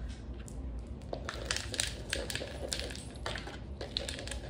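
Chunky potting mix with clay pebbles being scooped out of a plastic bucket and poured into a pot: an irregular gritty crunching and rattling of pebbles and bits, with many small sharp clicks.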